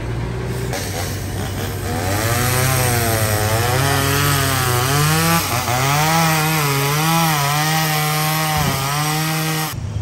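Chainsaw cutting through a fallen tree trunk, its engine note rising and dipping as the chain bites and eases. It follows a lower steady engine hum and stops suddenly just before the end.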